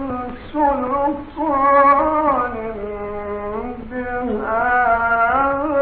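Old, narrow-band recording of a single voice chanting in an ornamented, melismatic style, with long held notes that slide and waver between pitches.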